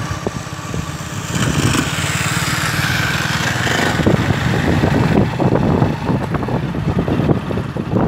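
Motorcycle engine running steadily while the bike rides along a street.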